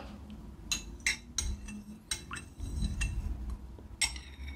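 Spoon clinking against a bowl several times, each light metallic clink ringing briefly; the last comes about four seconds in.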